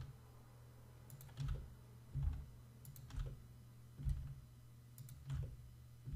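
Clicks of a computer keyboard and mouse, a dozen or so single presses at uneven intervals, over a steady low hum.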